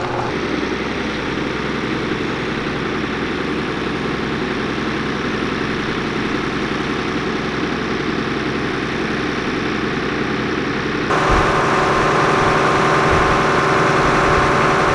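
Engine idling steadily. About eleven seconds in, the sound switches abruptly to a louder running with a strong mid-pitched hum and a heavier low rumble.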